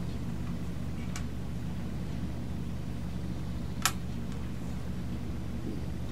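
A few light clicks of small plastic toy game pieces being handled and set down on a table, one about a second in and the loudest near four seconds in, over a steady low hum.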